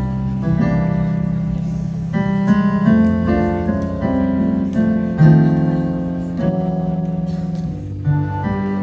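Instrumental song intro played on a keyboard: sustained piano-like chords over a bass line, changing chord every second or so.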